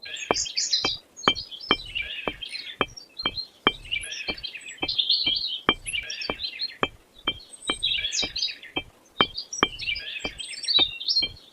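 Birds chirping in quick high twitters over a run of sharp knocks, about two or three a second and unevenly spaced.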